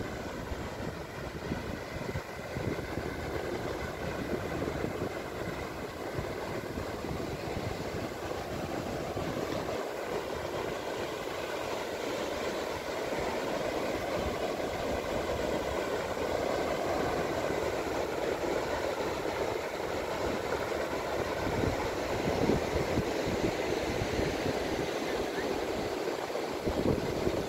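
Sea surf washing continuously onto a sandy beach, with wind buffeting the microphone in irregular low gusts.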